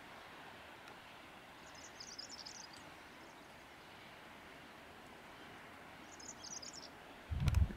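Faint steady outdoor hiss with two short bursts of high-pitched chirping a few seconds apart. Near the end comes a loud low thump with a couple of sharp clicks, handling noise on the microphone.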